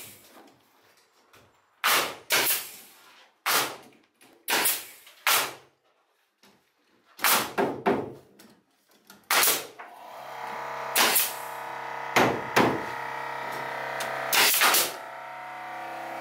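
Pneumatic nail gun firing into beadboard ceiling boards: about a dozen sharp, separate shots at an irregular pace, each a quick pop of air and nail. From about ten seconds in, a steady humming tone runs underneath the shots.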